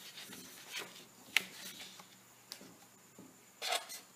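Black felt-tip marker handled and drawn across paper: faint scratchy rubbing strokes, two short sharp ticks in the first half, and a brief louder burst of strokes near the end.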